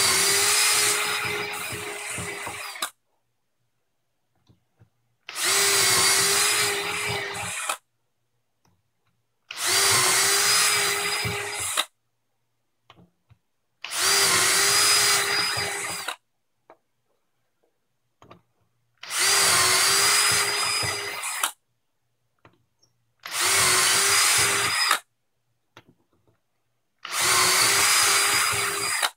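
Power drill with a 1/4-inch shelf-pin bit boring a row of shelf-pin holes in plywood. It makes seven short runs of two to three seconds each, about one every four seconds, with the motor whining steadily through each hole and stopping in between.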